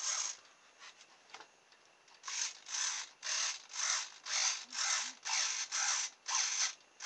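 Small hobby RC servo driven back and forth by a servo tester, its motor and gears whirring in short bursts. A burst right at the start, a pause of about two seconds, then bursts about twice a second.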